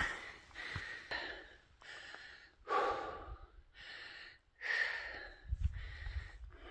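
A hiker breathing hard, with deep, noisy breaths every second or two: he is winded from a steep climb.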